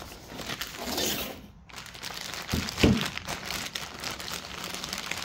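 Thin plastic bag crinkling as a new lawn tractor starter motor is unwrapped from it by hand, with a brief low thud a little past the middle.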